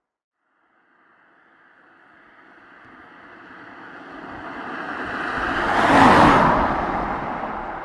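A vehicle passing close by: a rush of noise that builds steadily from silence, peaks about six seconds in, then fades away.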